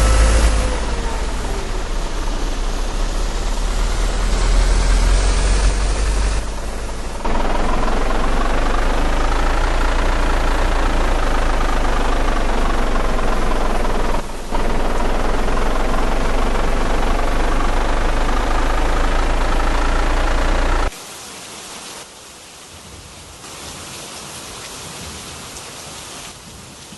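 Strong tornado winds rushing and buffeting the microphone of the tornado intercept vehicle, with a deep rumble and a wavering whine, broken by abrupt cuts. About two-thirds of the way through it drops suddenly to a much softer rain-like hiss.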